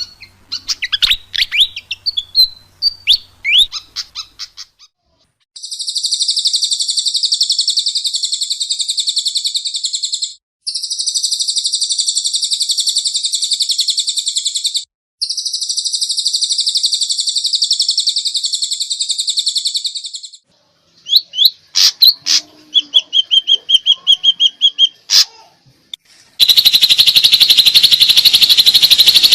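Songbird singing: high chirps, then three long, rapid buzzing trills of about five seconds each with brief breaks between them, followed by sharp calls, a rattling trill and another loud dense trill near the end.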